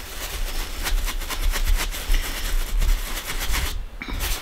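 Stencil brush dabbed quickly straight down through a plastic stencil onto a cotton tea towel, stippling on acrylic paint: a fast run of dull taps, several a second, with a short pause near the end.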